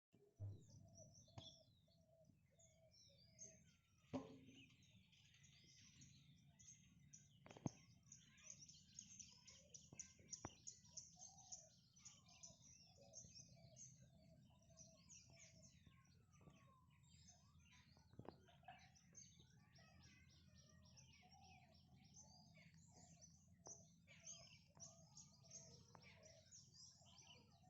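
A group of small birds chirping and twittering continuously in many overlapping short calls and whistles, with a few sharp clicks here and there.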